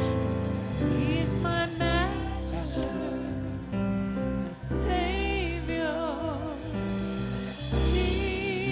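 Live church worship music: guitars and keyboard playing held chords over a steady bass, with a singer's voice holding long, wavering notes.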